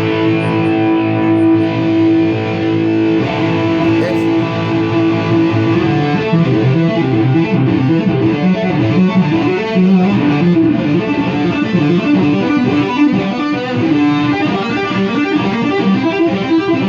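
Takamine GX-100 electric guitar with DiMarzio pickups played through a small tube amp head without its drive circuit engaged, giving a lightly gritty tone. It opens on a held note, and from about six seconds in it runs through quick single-note lines.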